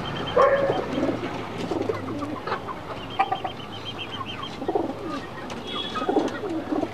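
Domestic pigeons cooing repeatedly at roost. Two runs of rapid, high, ticking chirps come in briefly at the start and about three seconds in.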